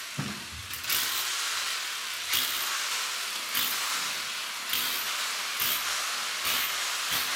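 Electric drill working a bit into a plaster wall to free an old wire. It makes a steady hissing noise that rises in brief surges about once a second.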